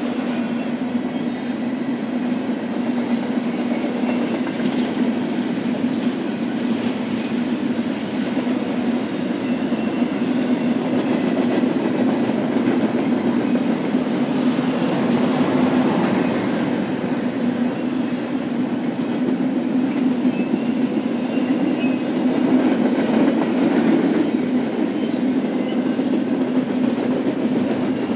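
BNSF intermodal stack train rolling past, its cars' steel wheels running steadily on the rails with a continuous rumble and some clickety-clack.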